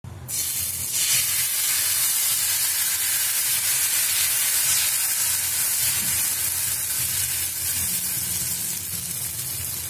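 Thin rice-flour ghavne batter sizzling as it is poured onto a hot oiled pan, a steady hiss that starts suddenly just after the beginning and holds while the batter spreads and bubbles into a lacy crepe.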